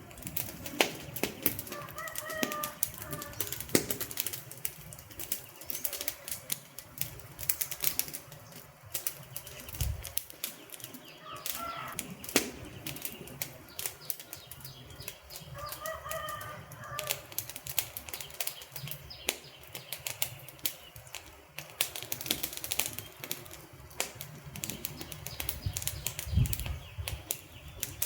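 Wood fire burning and crackling, with irregular sharp pops and snaps throughout and a couple of low thumps. Three short pitched calls sound faintly behind it.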